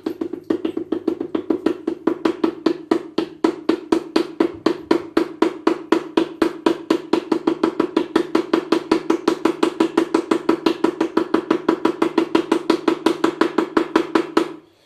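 Percussive background music: a fast, perfectly even beat of drum-like hits, about five a second, over a steady low bass tone, cutting off abruptly near the end.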